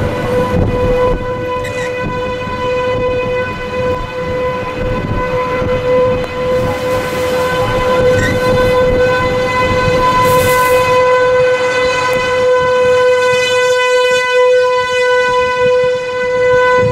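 Outdoor tornado warning siren sounding one long, unbroken tone over a low rumble.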